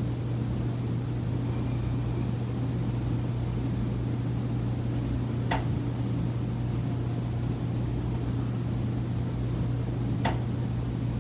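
Two sharp knocks from inside the walls of a high-rise condo, about five seconds apart, over a steady low hum. The knock recurs every day and comes from the building's common elements.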